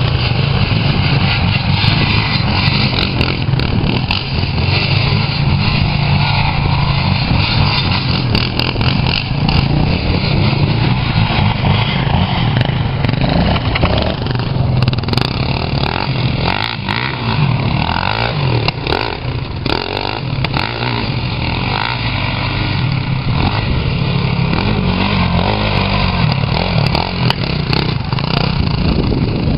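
Quad bike engines running steadily, revving up and down in places in the second half.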